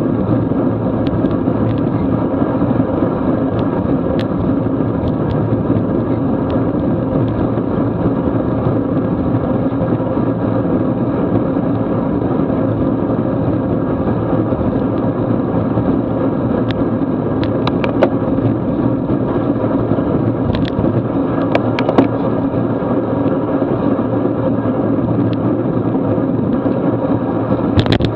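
Steady rush of wind on the microphone mixed with road-bike tyres hissing on wet pavement at about 20 mph. A few sharp clicks in the second half.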